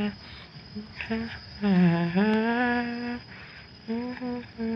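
A person humming a slow, lullaby-like tune: a few short notes, then longer held notes with brief gaps between phrases.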